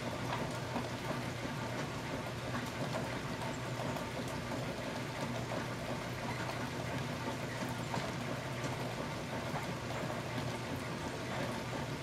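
Steady rain pattering on the forest, with scattered individual drops ticking, over a steady low hum.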